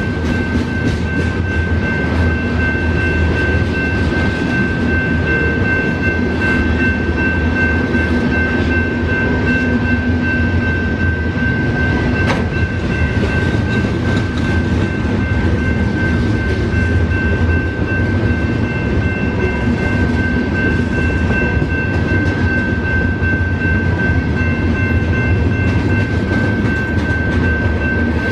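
Freight cars of a CN train, covered hoppers and tank cars, rolling steadily past at a grade crossing: a continuous rumble of steel wheels on rail. The crossing's warning bell rings over it in a steady high tone, with one sharp click about twelve seconds in.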